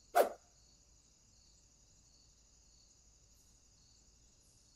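Crickets chirping steadily in a faint background ambience, after a short loud sound just as it begins.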